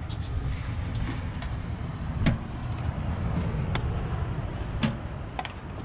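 A steady low rumble with several sharp knocks over it, the loudest a little over two seconds in.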